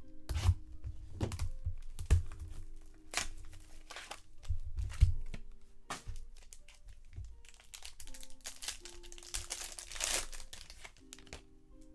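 Crinkling and tearing of a trading-card box's wrapper and foil pack as it is opened, with a series of knocks and taps from handling the box and cards. The crinkling is densest near the end. Quiet background music plays under it.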